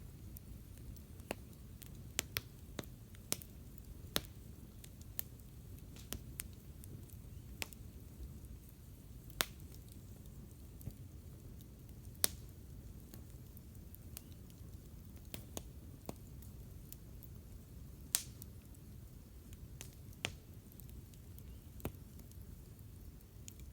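Wood campfire crackling: irregular sharp pops and snaps, a few loud ones standing out, over a low steady rumble.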